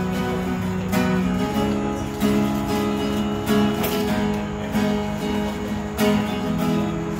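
Acoustic guitar strummed, chords struck about once a second and left to ring.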